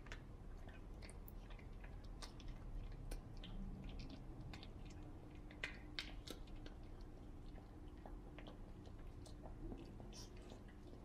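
Small dog chewing a treat: irregular faint crunching clicks from its teeth, busiest in the first half and sparser toward the end.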